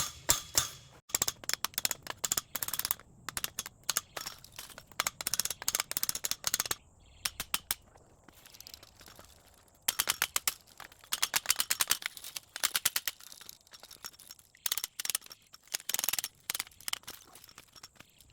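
A pipe wrench used as a hammer, striking metal over and over in quick runs of sharp, ringing blows with short pauses between them.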